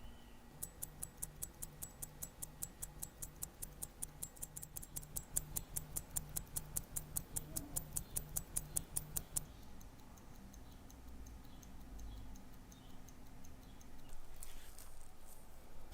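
Rolex calibre 1570 watch movement ticking in a fast, even beat of about five to six ticks a second, the beat of a running balance. The ticks are loud for about nine seconds, then go fainter. Near the end there are a couple of brief rustling handling noises.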